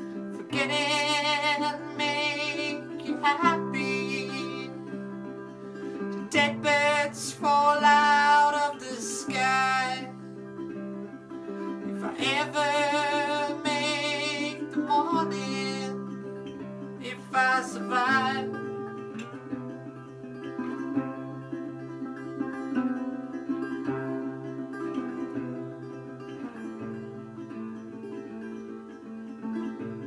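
Resonator guitar instrumental break in a slow blues: a steady picked accompaniment with a bright melody line over it in four phrases that slide up into their notes and waver with vibrato. The melody stops about two thirds of the way through, leaving only the quieter accompaniment.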